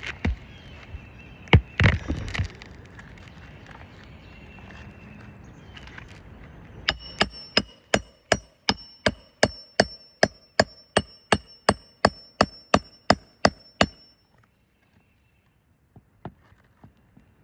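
Hand hammer driving roofing nails into a replacement asphalt shingle: a long run of evenly spaced, ringing metal-on-metal strikes at about three blows a second, after a few loud knocks in the first couple of seconds. The strikes stop abruptly about two seconds before the end.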